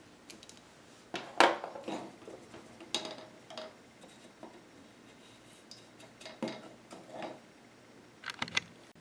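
A series of light clinks and knocks from painting tools being handled, the loudest about a second and a half in, with a quick cluster near the end.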